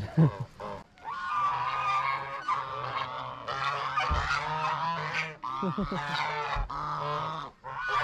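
Several geese honking almost without pause, their calls overlapping, starting about a second in with only brief gaps.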